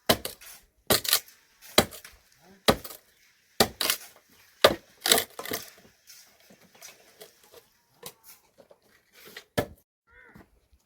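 Repeated sharp blows on wood, about one a second, as in chopping or hammering. The blows thin out to a few scattered strikes in the second half.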